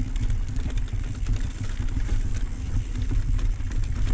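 Wind rumbling on the microphone of a camera riding on a mountain bike as it rolls down a dirt singletrack, with tyre noise and many small rattles and knocks from the bike over the rough ground.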